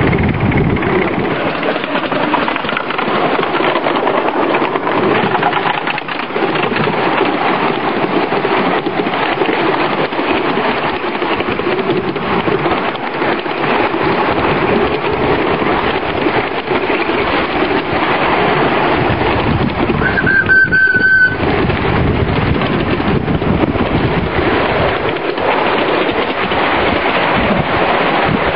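Miniature ride-on railway train running along the track, heard from aboard as a loud, steady rumble of wheels on rails. A brief high whistle toot sounds about twenty seconds in.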